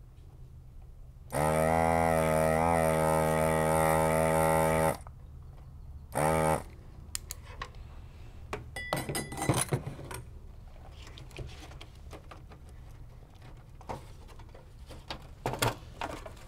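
Desoldering gun's vacuum pump running with a steady buzz for about three and a half seconds, then a short second burst, sucking molten solder off the battery terminals. Light clicks and knocks of the circuit board and case being handled follow.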